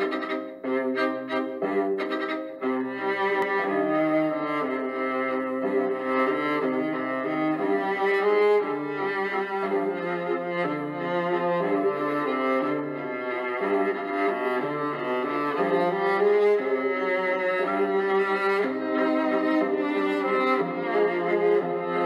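Instrumental background music played on bowed strings, with cello and violin carrying a melody.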